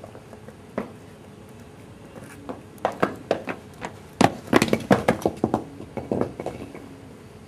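A quick, irregular run of sharp clicks and knocks. It starts a couple of seconds in, crowds together in the middle and thins out again before the end.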